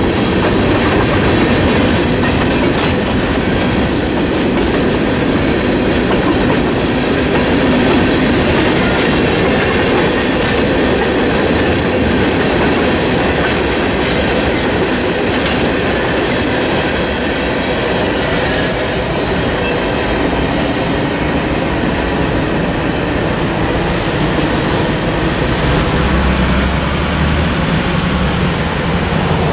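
Freight train cars (boxcars, flatcars and tank cars) rolling past at a level crossing, a steady rumble with the clickety-clack of wheels over the rail.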